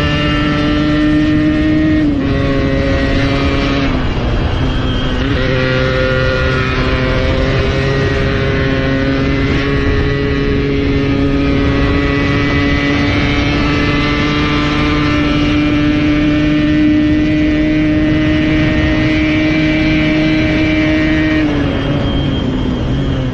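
Yamaha RX two-stroke single-cylinder motorcycle engine run hard at full throttle, a high, steady note. Its pitch dips briefly about two and four seconds in, then holds high for a long stretch and falls away near the end.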